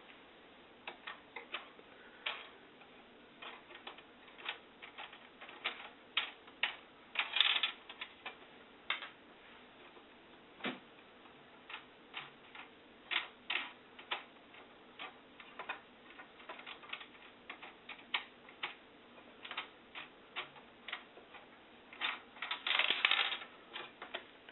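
Irregular light clicks and taps of small metal hardware being handled as the wing nuts holding an overhead projector's Fresnel lens and platform are worked loose, with brief scraping rustles twice, near the middle and near the end.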